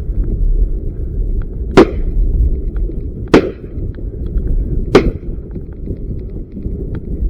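Three shotgun shots about a second and a half apart, over a steady low rumble of strong wind buffeting the microphone.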